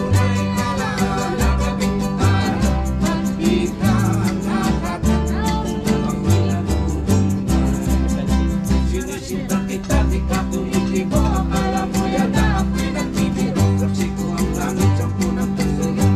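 Live serenading band: strummed acoustic guitars keep a steady rhythm over a walking bass line, while a singer's voice carries the melody.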